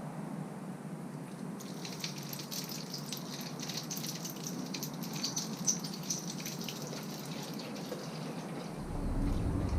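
Fluid trickling and spattering out of an engine onto a surface below, starting about two seconds in. A low rumble joins near the end.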